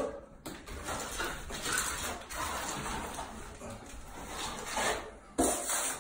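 Steel plastering trowel scraping and spreading a thin coat of bonding plaster across a ceiling, with a sharper knock about five seconds in.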